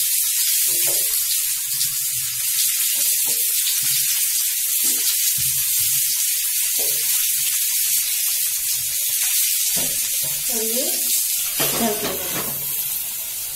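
Potato slices and stuffed brinjals sizzling in hot oil in a frying pan over a high flame, a steady hiss as the raw slices are laid into the oil.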